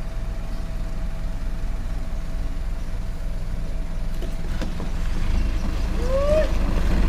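Loaded dump truck's diesel engine running as it reverses slowly, its low rumble growing louder from about five seconds in as it comes closer. About six seconds in, a brief high tone rises and falls.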